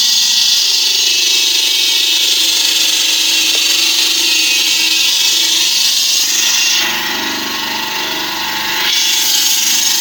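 Stone-cutting saw machine cutting Dagestan stone, a loud steady high-pitched grinding hiss. About seven seconds in, the high hiss eases for a couple of seconds and a lower tone comes up, then the full cutting sound returns.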